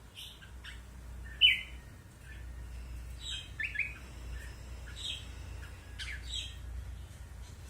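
Red-whiskered bulbul giving short chirping calls at irregular intervals, the loudest about a second and a half in.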